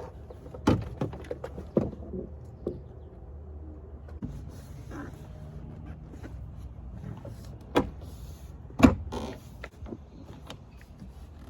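Clicks and knocks of a 2010 Lincoln MKZ's plastic interior door trim panel being handled and fitted back onto the door, with several sharp knocks, the loudest about three-quarters of the way in.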